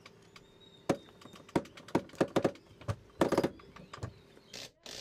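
Sailboat deck winch cranked with a winch handle, its pawls and handle giving a series of irregular clicks and knocks, some in quick clusters, as it hoists the boat's engine on a line.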